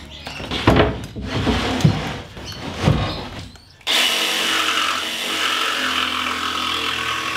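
A plywood sheet knocking and scraping as it is handled, then about four seconds in a DeWalt cordless jigsaw starts and runs steadily, cutting through the plywood.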